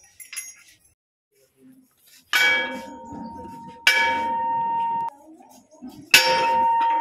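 Hanging temple bell rung by hand three times, each strike ringing on with a clear, steady tone.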